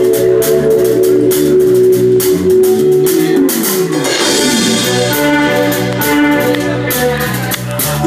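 Live band playing: held electric organ chords over a drum kit and bass guitar, with a steady beat of drum and cymbal hits; the chord changes about four seconds in.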